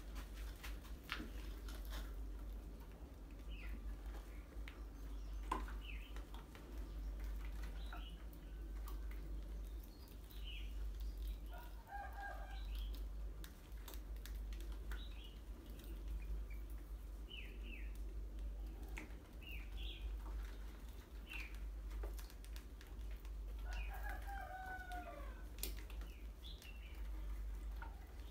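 Rats scurrying on a tiled floor around water-jar traps, with scattered clicks and many short high squeaks. A rooster crows twice, about twelve seconds in and again near the end.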